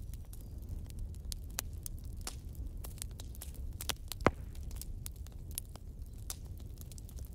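Scattered crackling pops and clicks over a steady low rumble, one louder pop about four seconds in.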